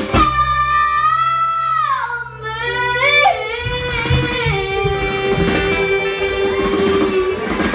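A live acoustic band of upright bass, acoustic guitars and ukuleles plays while two young girls sing. Their long sung notes slide down about two seconds in, then settle on one long steady note that stops shortly before the end.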